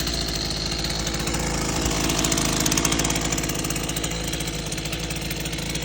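Engine of a heavy work machine running steadily, a little louder around two to three seconds in.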